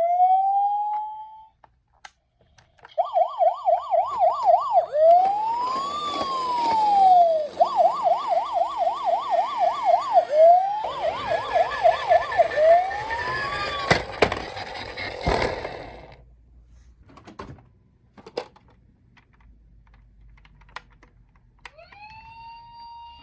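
Electronic siren of a toy emergency vehicle. A short rising wail comes first, then after a pause a fast yelp of about three to four sweeps a second alternates with slow rising-and-falling wails, the police-car pattern. It stops after about a dozen seconds. A few sharp clicks follow, and near the end a new steady siren tone begins.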